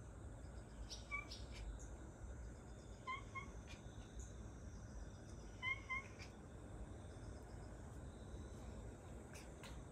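Domestic cat giving short, high chirping meows: one about a second in, then two quick pairs around three and six seconds in.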